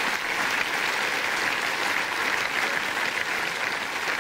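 Studio audience applauding steadily: a dense, even clatter of many hands clapping.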